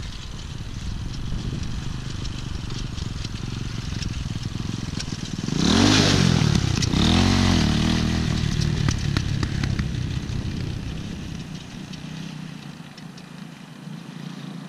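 Engine of a 200 cc dirt bike being ridden. It grows loud about five and a half seconds in, its pitch rising and falling with the throttle for a couple of seconds as the bike passes close, then it fades away into the distance.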